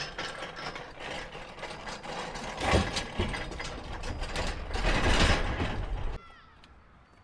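Mechanical clattering and rattling of ramp parts being worked loose and handled during dismantling, louder about three seconds in and again around five seconds. It cuts off abruptly near the end.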